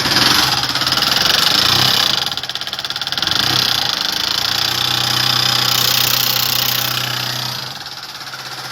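Honda CG 150 Fan Mix single-cylinder four-stroke engine running with an infernal rapid mechanical clatter from the top end, a little quieter near the end. When the engine is opened, the mechanic finds the cause: broken rocker arms and a worn camshaft.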